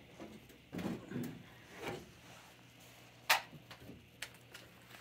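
Scattered knocks, rustles and clunks of hands and tools working on a furnace's sheet-metal cabinet, with one sharp click about three seconds in.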